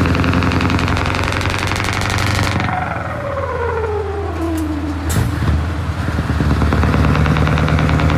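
Loud-piped Scania V8 diesel truck engine running at road speed. About three seconds in, a whistle glides down in pitch while the engine sound eases, a sharp crack follows a couple of seconds later, then the engine pulls steadily and louder.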